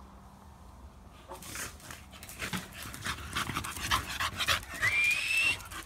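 American Bully dog panting and snuffling close to the microphone in quick, uneven breaths, starting about a second in. Near the end comes one short high whine that rises and then holds.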